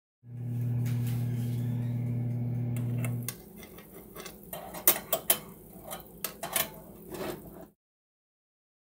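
Dash 10L compact air fryer oven running with a steady low hum for about three seconds, followed by a run of metallic clinks and clatters from its baking pan and wire rack being handled. The sound cuts off suddenly.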